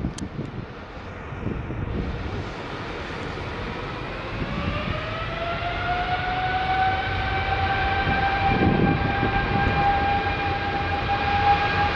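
British Airways Boeing 777 twin jet engines spooling up for takeoff: a whine rises in pitch about four seconds in and then holds steady and high over a low rumble.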